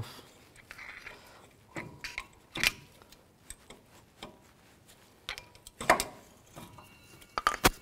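Sharp metal clicks and clinks as a flat-blade screwdriver pries old brake pads out of a caliper bracket, a few spaced clicks and a quick run of them near the end.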